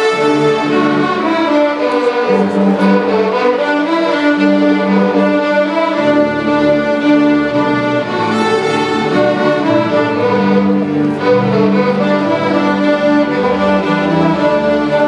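Middle school string orchestra of violins, cellos and double bass playing a piece together in held, steady chords.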